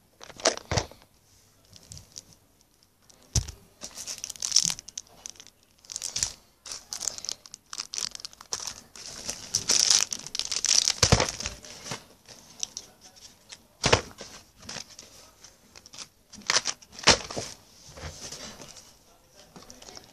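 Plastic packaging and card folders rustling and crinkling in irregular bursts as school stationery is handled and shuffled, with a few sharper knocks in between.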